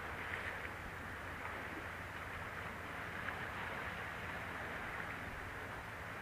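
Steady hiss of the sea washing against the rocks below, with a faint tick about three seconds in.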